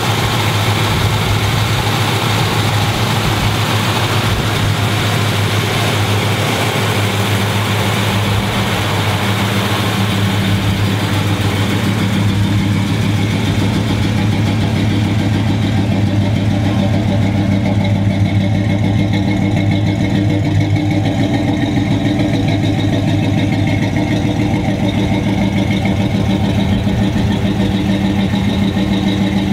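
1981 Chevrolet Camaro Z28's V8 idling steadily, with no revving.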